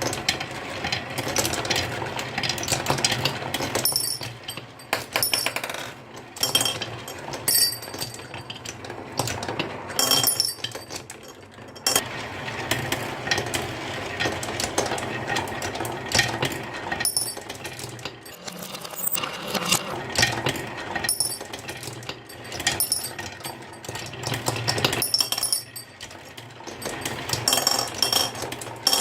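Marbles and small toy vehicles rolling and clattering down a wooden marble run, with a steady rolling rumble and many sharp clicks and clinks as they knock against the track pieces.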